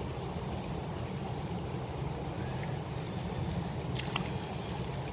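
River water flowing steadily, with a few small sharp clicks about four seconds in.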